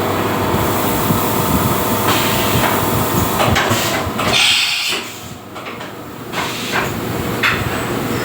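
CNC machine running: a steady mechanical noise with a faint steady whine, a burst of hiss about four seconds in, then briefly quieter before the running noise returns.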